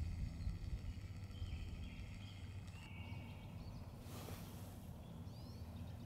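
Quiet woodland ambience: a steady low rumble with a few faint songbird chirps, and a brief hiss about four seconds in. No woodpecker drumming.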